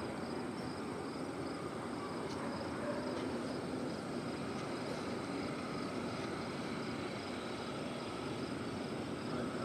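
Steady distant engine rumble with no distinct events, over a faint, high, evenly pulsing insect trill.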